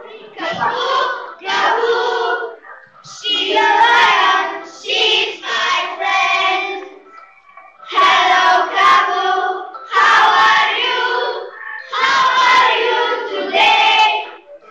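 A group of children singing together in unison, in phrases of a few seconds with short breaks between them.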